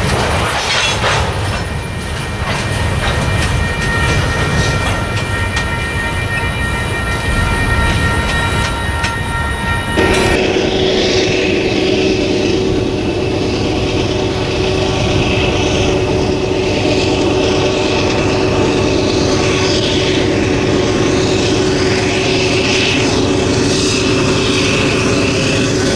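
Freight cars rolling past, wheels clacking over rail joints, with a few steady high tones. About ten seconds in, the sound cuts to the steady drone of approaching diesel freight locomotives.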